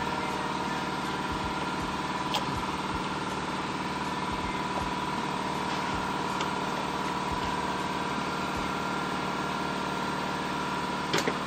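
Steady engine-like machine drone, as of a motor running at idle, with a strong steady tone and no change in speed. A light click sounds about two seconds in, and a quick double click comes near the end.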